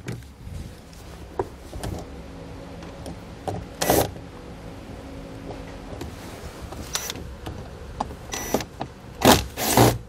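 A cordless driver's motor whirring steadily for about six seconds as it backs out Phillips-head screws, then a few short knocks and rattles, the loudest near the end.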